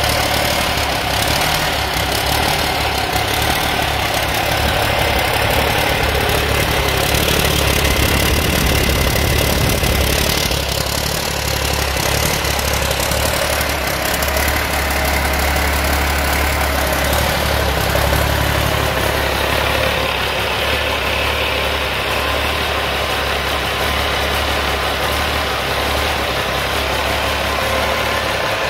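1989 Cummins L10 turbocharged inline-six diesel engine idling steadily on a test-run stand.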